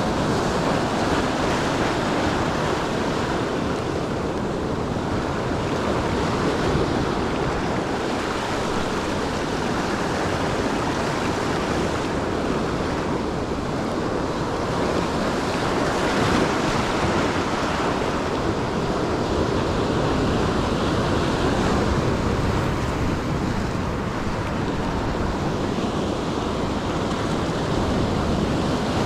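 Ocean surf washing in continuously, swelling and easing gently, with some wind on the microphone.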